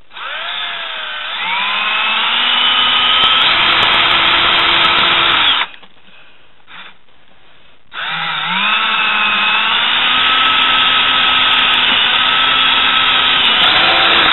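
Cordless drill boring a hole through a plastic rod-holder tube and bucket wall, in two runs. Each run spins up with a rising whine, then runs steadily, with a pause of about two seconds between them.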